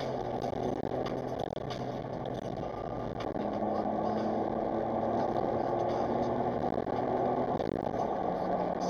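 Smart Roadster Brabus's small turbocharged three-cylinder engine running steadily while the car drives, with road noise at an even level.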